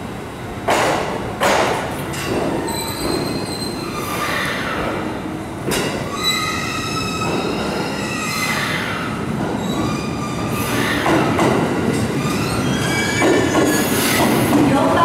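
Train wheels squealing on curved track and pointwork, several shrill tones wavering in pitch over the rolling noise, with sharp clacks over rail joints near the start and again about six seconds in.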